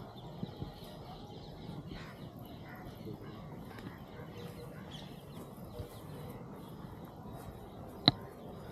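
Faint background ambience with distant bird calls, and one sharp click about eight seconds in.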